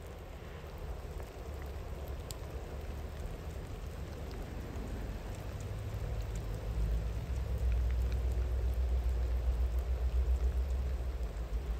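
Steady rain falling with a soft hiss and a few faint drop ticks, under a low rumble that grows louder about halfway through and eases off near the end.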